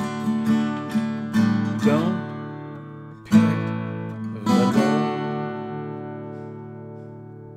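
Strummed acoustic guitar ending a song: a few quick strums, a short pause, two last strums, then the final chord left to ring and fade out slowly.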